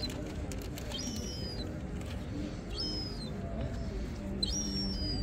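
A bird calling three times, a short high call that holds and then drops slightly, repeated about every one and a half to two seconds over a steady low background noise.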